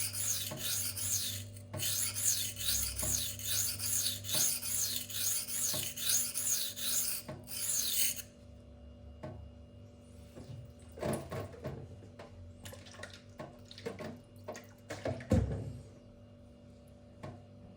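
K110 steel knife blade stroked back and forth on a 240-grit silicon carbide whetstone, a rhythmic rasping at about two strokes a second while raising a burr. The strokes stop about eight seconds in, followed by scattered light knocks and clicks and one louder knock near the end.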